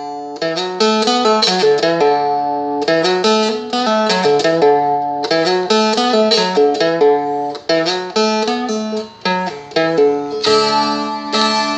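Four-string Seagull Merlin played in open D: a continuous run of picked notes that step quickly from pitch to pitch, with pull-offs, and fuller strums about ten seconds in.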